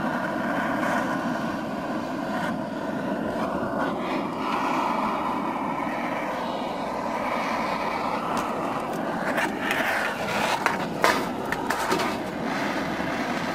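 Blowtorch flame running with a steady rushing hiss as it is played on aluminium drink cans, melting through the metal. A few sharp clicks and crackles come in the last few seconds.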